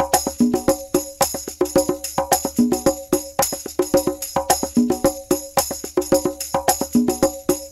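Upbeat background music: quick, steady percussion with a short low melodic figure that comes back about every two seconds.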